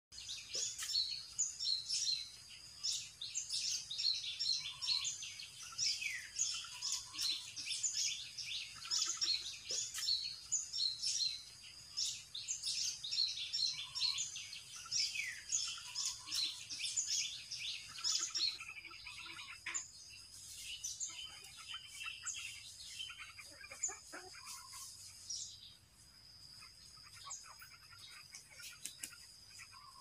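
Many small birds chirping and twittering in quick, high notes, dense at first and thinning out and getting quieter after about eighteen seconds, when a thin steady high tone comes in.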